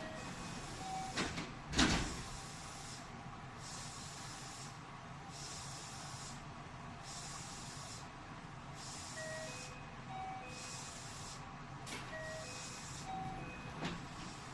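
Interior sound of a JR West 207 series electric train car: a low hum under a high hiss that switches on and off about every second and a half. There is a sharp clunk about two seconds in, and a few short electronic tones at different pitches sound near the start and again in the second half.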